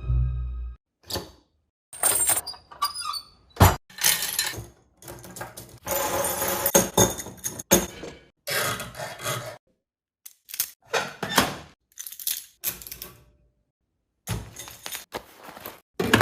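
A run of Foley sound effects: a string of separate thuds, crashes and breaking sounds, some with a hissing whoosh. Each stops abruptly and is followed by dead silence.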